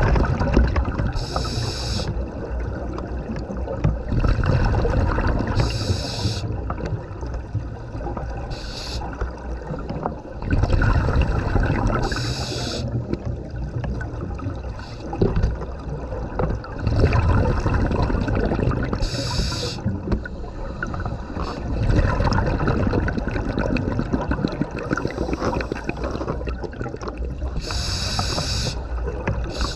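Scuba breathing heard underwater: the regulator's inhalation gives a short hiss every few seconds, and exhaled bubbles bubble and gurgle in between.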